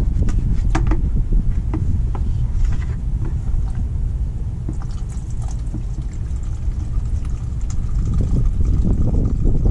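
Wind rumbling on the microphone, uneven and steady in level, with a few light clicks near the start.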